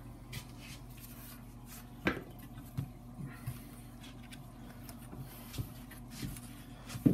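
Foam core board, a yardstick and a utility knife being handled and set down on a plastic cutting mat: scattered light taps and rubs, with a sharper knock about two seconds in and the loudest knock near the end.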